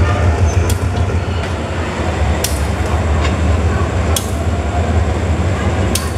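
Diesel locomotive engine idling, a steady low hum, with a sharp click repeating about every second and three-quarters.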